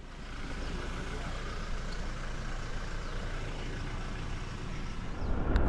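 Road noise of passing motor traffic, a steady rush that grows louder about five seconds in.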